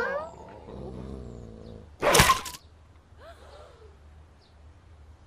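A dog's low growl, then about two seconds in a sudden, short, very loud roaring snarl, followed by a faint whine.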